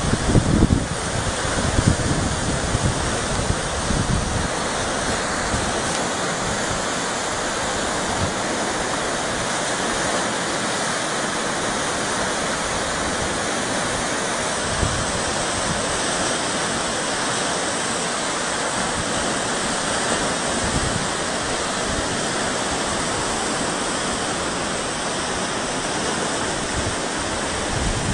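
Steady rush of fast-flowing floodwater, an even hiss without let-up, with some low rumbling gusts in the first few seconds.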